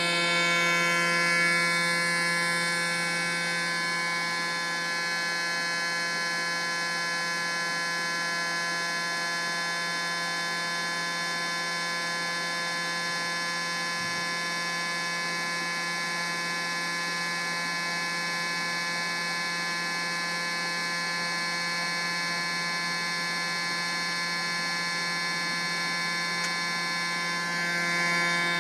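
Small electric motor running steadily in a homemade PVC-pipe foam-ball machine: a constant buzzing hum. A faint high tone falls in pitch during the first few seconds.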